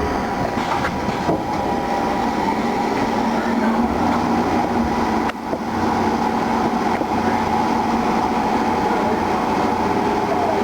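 Haas CNC lathe running on an aluminum workpiece: a steady mechanical drone with a constant motor whine, and a brief dip about halfway through.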